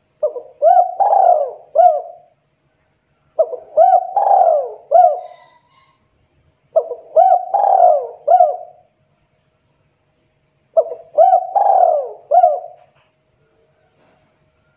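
Spotted dove (tekukur) cooing: four repeats of its song phrase a few seconds apart, each phrase a quick run of about four coos.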